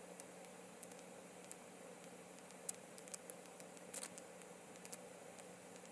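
Faint steady background hiss with a low hum, broken by scattered small sharp clicks, most of them in the middle of the stretch.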